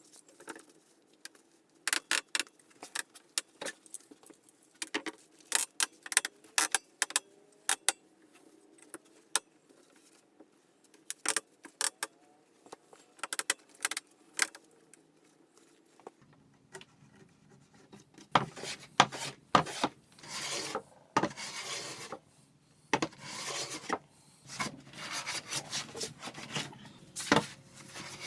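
Workshop handling sounds: a scattered run of sharp clicks and clinks of parts and tools being picked up and set down, then from about halfway on denser rubbing and scraping.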